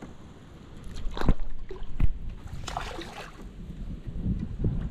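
Two sharp knocks about a second apart as a fishing rod is handled against a plastic kayak, followed by rustling, with light water sloshing at the hull and a low wind rumble on the microphone.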